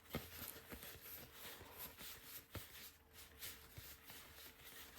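Faint, scattered soft clicks and rustles of cardboard football trading cards being handled and flipped through, over a faint steady hum.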